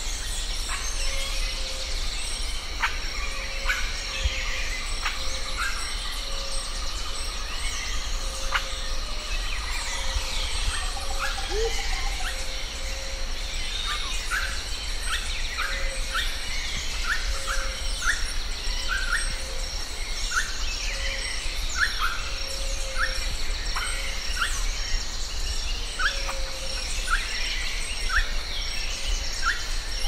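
Outdoor nature ambience: a steady high insect drone, with birds calling. There is a low note repeated about once a second throughout, and from about halfway on a bird gives short chirps about once or twice a second.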